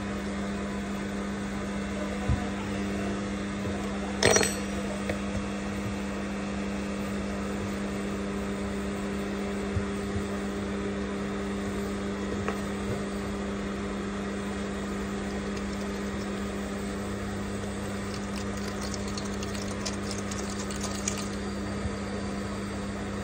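A steady machine hum runs throughout, with a brief clatter about four seconds in and faint light scratching near the end.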